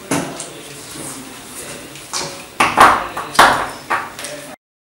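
Hard objects being handled at a work counter: a few sharp clinks and knocks with a short ring, the loudest in the second half. The sound cuts off suddenly near the end.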